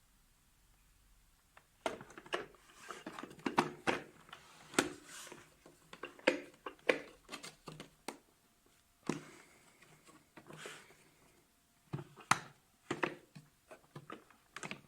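An irregular run of short clicks, knocks and clatters, like hard objects being handled, starting about two seconds in. No steady motor noise runs under them.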